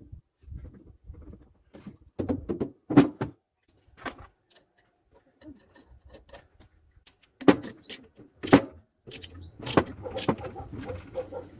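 Irregular metallic clicks, clinks and knocks, in small clusters, of metal parts and tools being handled.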